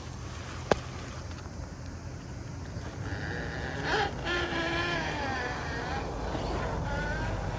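Steady low rumble with a single sharp click about a second in, then faint voices from about three seconds in.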